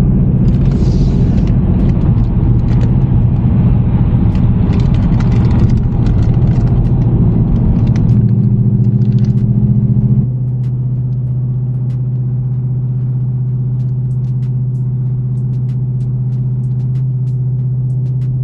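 A car cruising at highway speed, heard from inside the cabin: a steady engine drone with tyre and road noise. About ten seconds in, the road noise drops and the drone carries on a little quieter.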